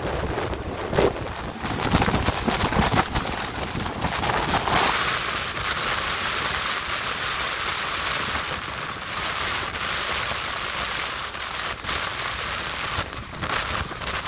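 Steady rush of Niagara Falls' falling water and spray, with wind buffeting the microphone. The buffeting is uneven in the first few seconds, and about five seconds in the sound turns to a brighter hiss.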